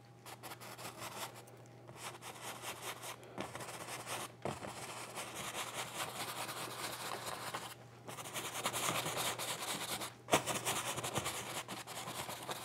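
Paintbrush bristles scrubbing oil paint into canvas in small circular strokes: a continuous scratchy rasp, broken several times by brief pauses as the brush lifts.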